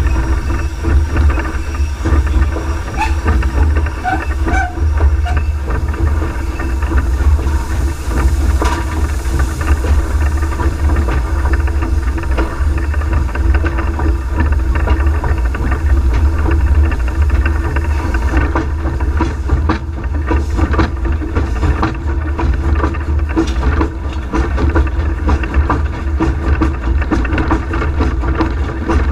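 Cab sound of a Peckett industrial steam locomotive working a train under power: a steady loud rumble and hum from the running engine, with knocks and clanks becoming more frequent in the second half.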